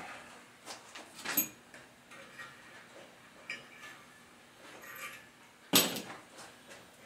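Scattered light metallic clinks and knocks of parts and hardware being handled during assembly, with a single louder knock a little before the end.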